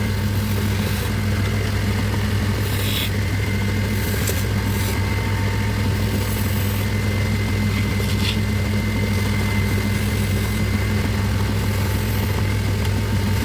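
Electric motor of a woodworking machine running steadily with an even hum, with a few brief rasping noises about 3, 4.5 and 8 seconds in.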